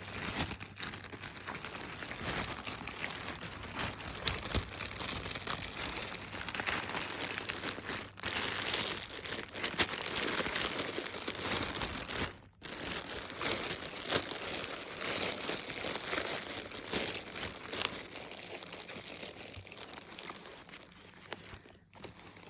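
Continuous crinkling and rustling of packaging as a chest pack is unwrapped and handled, with short breaks about 8 and 12 seconds in.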